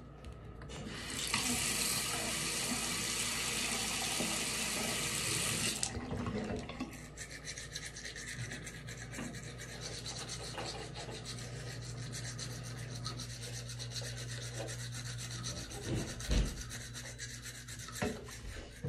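A tap runs for about five seconds, then a toothbrush scrubs teeth in fast rasping strokes until the end.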